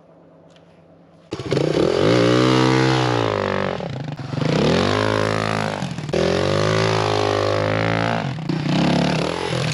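Suzuki DR350SE's single-cylinder four-stroke engine revving hard as the dirt bike pulls away through loose dirt, its pitch rising and falling about four times. The engine comes in suddenly about a second in, after a faint stretch.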